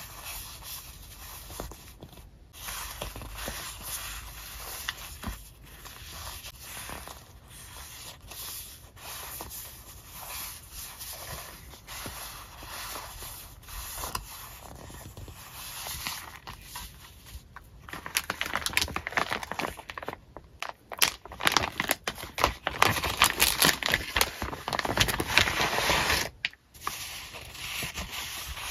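Paper sticker sheets rustling and scraping against each other as a stack is fanned and shuffled by hand. About two-thirds of the way through the handling gets louder and crackly, with many quick rustles, then settles again near the end.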